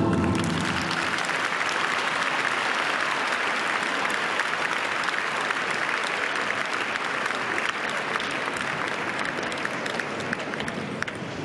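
Arena audience applauding, a dense even clapping that slowly dies down toward the end.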